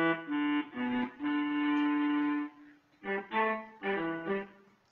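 Akai EWI 5000 electronic wind instrument playing its baritone sax two preset: a few short detached notes, one longer held note about a second in, then a quick run of short notes that stops near the end.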